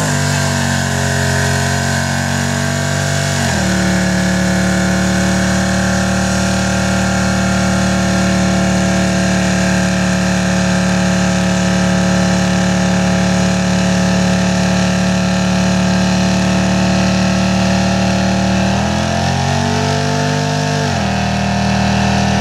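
Car engine revved hard and held at high revs through a burnout while the rear tyres spin and smoke. The pitch steps about three seconds in, changes again near 19 seconds, and the revs fall as the driver lets off near the end.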